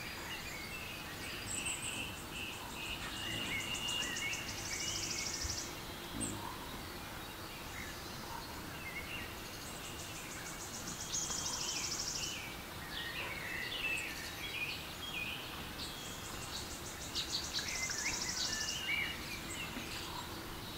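Recorded forest ambience with birdsong: birds chirping and whistling over a steady background hiss, while a high, pulsed insect trill comes and goes about four times.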